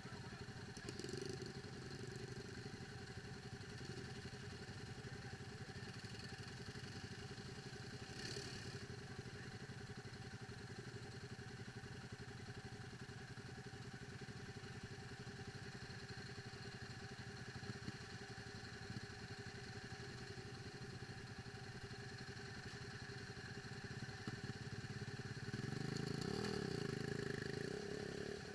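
ATV engine running steadily at low revs, getting louder with a rise and fall in pitch near the end as it is revved.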